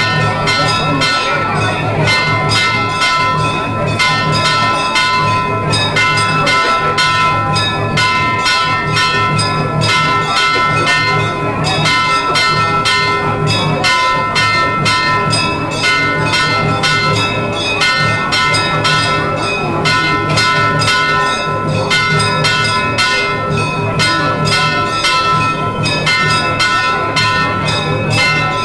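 Temple bells clanging rapidly and without pause, several strikes a second, over a low pulsing beat, the continuous bell-and-drum din that accompanies the abhishekam.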